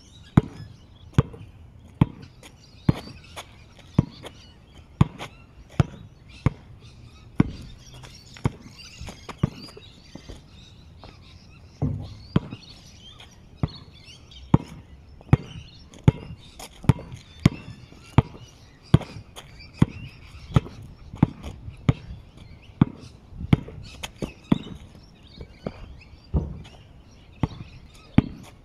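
A basketball dribbled on an outdoor asphalt court, each bounce a sharp slap. The bounces come about once a second, break off briefly near the middle, then quicken to about two a second.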